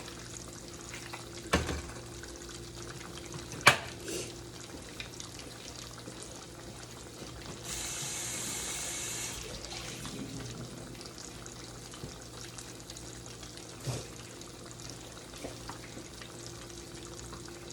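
Kitchen tap running briefly, with a steady low hum and a few sharp clicks and knocks of utensils or containers.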